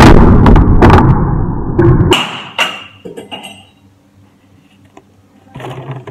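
Empty plastic water bottle crackling loudly as it is twisted tight, then its cap popping off under the compressed air, followed by a short ringing ping.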